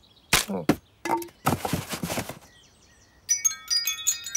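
Metal-tube wind chime jangled by a pull on its string, ringing with several clear overlapping tones from about three seconds in. Before it come a few short cartoon sound effects, some with a voice-like pitch.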